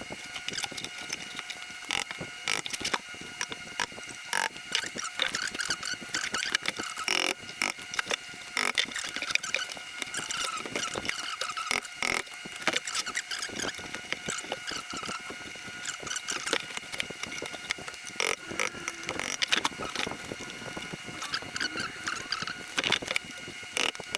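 A hammer driving a punch in an irregular run of sharp taps, chipping the metal shoulder off an old toe link bushing, over a faint steady hum.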